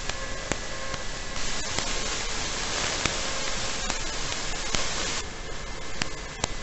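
Steady static hiss on the audio channel of an EV800D FPV goggle's analog video receiver, with no sound carried over the link. It gets louder about a second and a half in and eases back about five seconds in, with a few faint clicks.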